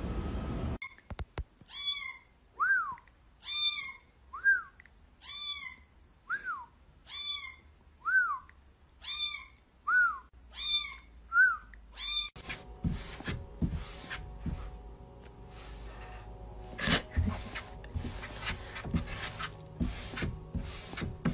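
A kitten mewing over and over, short high calls one or two a second for about eleven seconds. Then a cat scratching and batting at the inside of a cardboard box: a run of scratchy taps over a faint steady hum.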